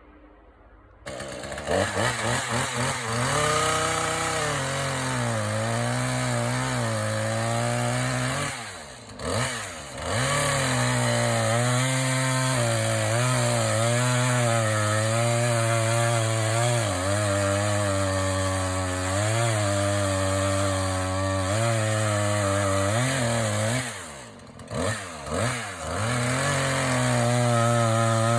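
Chainsaw starting up about a second in and cutting into a white oak trunk, its engine pitch sagging and recovering under load. The throttle drops off briefly twice, the second time with a few quick revs before the saw runs at full throttle again.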